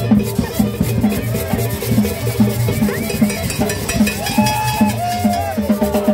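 Live Latin dance music from a street band: upright double bass and saxophone over a steady percussion beat of about three strokes a second.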